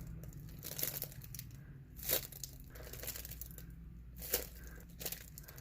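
A homemade paper squishy being squeezed by hand, its paper crinkling in faint, scattered crackles.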